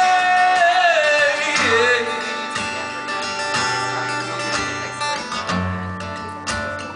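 A man singing live with acoustic guitar: he holds a long note that slides down in pitch and ends about two seconds in, and the acoustic guitar is then strummed on its own.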